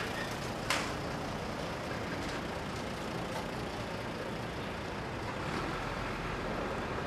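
Steady outdoor rumble of motor-vehicle noise, with one sharp click about a second in.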